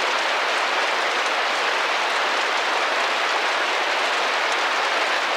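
Heavy rain, a steady, even hiss with no let-up.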